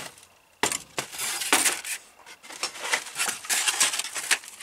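Hands rummaging through junk in a car's cabin: hard objects clink and clatter against each other, and brittle old paper rustles as a record sleeve is pulled free. The clattering starts about half a second in and goes on in a quick, uneven run.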